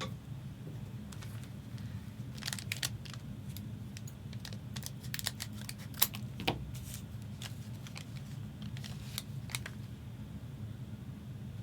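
Trading cards being handled and flipped through, with scattered sharp clicks and light rustling; the loudest click comes about six seconds in. A steady low hum runs underneath.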